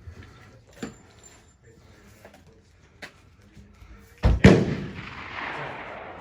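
A single loud gunshot about four seconds in, its report echoing and dying away over nearly two seconds; before it, only faint clicks of gear handling.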